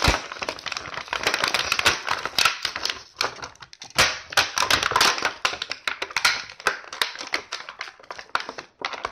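Clear plastic toy packaging crackling and crinkling as it is handled, with many small irregular clicks and a sharper knock about four seconds in.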